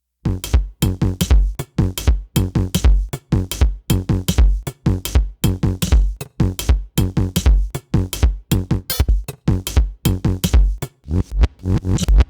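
Electronic dance music with a fast drum-machine beat and heavy bass thumps, starting abruptly after a cut.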